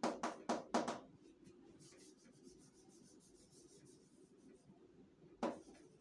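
Chalk writing on a chalkboard: a quick run of louder strokes in the first second, then a long stretch of faint scratching as the word is written, and one more loud stroke near the end.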